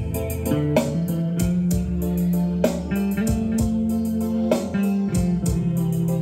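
Instrumental passage of a Khmer song: an electric guitar played live through an amplifier over a bass line and a steady beat.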